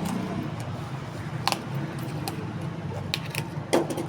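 Packaging being handled: a few short clicks and crinkles, the loudest near the end, over a steady low hum.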